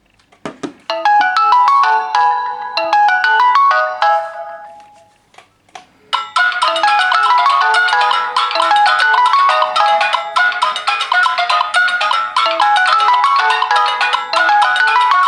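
Samsung Galaxy smartphone ringtone melodies through the phone's speaker. A short melody rings for about three seconds and dies away, then after a couple of clicks a busier melody starts about six seconds in and keeps playing.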